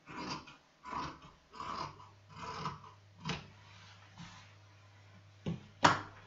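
Large dressmaking shears cutting through two layers of cotton fabric, the lower blade kept on the cutting mat: five snips about every three-quarters of a second, then two sharp knocks near the end, the second one loud.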